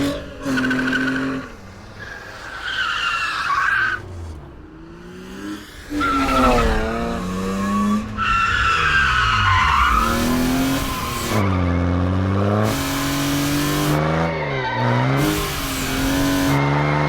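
Drift car engine revving up and down, with tyres squealing and skidding as it slides. The sound breaks off and changes abruptly several times, a string of short takes.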